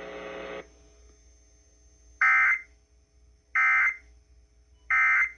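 Emergency Alert System end-of-message data bursts: three identical short, buzzy digital tone bursts about a second and a half apart, the signal that closes the alert. A hiss cuts off just after the start.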